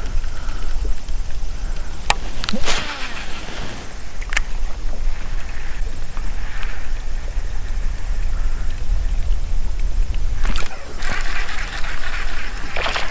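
Wind buffeting the microphone in a low rumble, over the rush and lap of water along a moving kayak's hull. The noise swells twice, about two and a half seconds in and again near the end, with a few sharp clicks.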